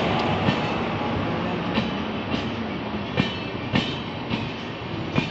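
Maurya Express passenger coaches rolling past close by: a steady rumble of wheels on rail, broken by sharp clicks as wheels cross rail joints. The rumble slowly gets quieter.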